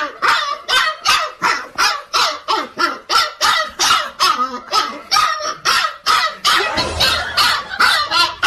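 A dog barking over and over in a quick, even run, about three barks a second.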